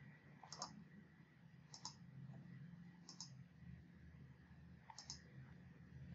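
Faint computer mouse clicks, about four, each a quick press-and-release pair, spaced a second or more apart, over a faint low hum.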